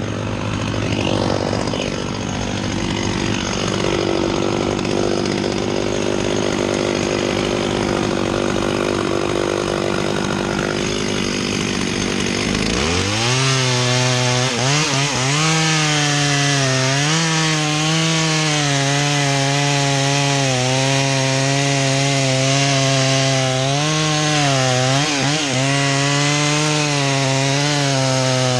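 Two-stroke Stihl chainsaw idling, then opened up to full throttle at about 13 seconds and cutting into the red oak trunk behind the notch (the felling back cut). Its pitch wavers and sags now and then as the chain loads up in the wood.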